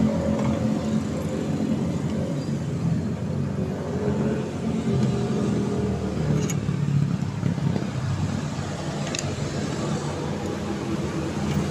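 Another vehicle's engine running steadily, its hum wavering slightly, with two faint metal clicks in the second half as the one-way starter clutch is worked off the crankshaft.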